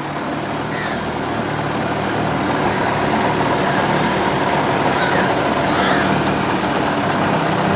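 Boat motor running steadily at low speed, a constant hum that slowly grows a little louder.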